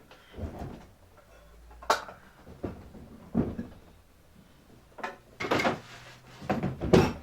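Clunks and knocks of workshop equipment being handled and set down: about six irregular thuds and knocks, a sharp one about two seconds in and a louder cluster near the end.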